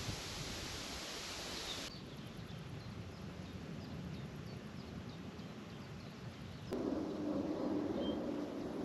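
Wind rustling leaves, cutting off abruptly about two seconds in, then small birds chirping faintly. Near the end a steady low rumble comes in suddenly.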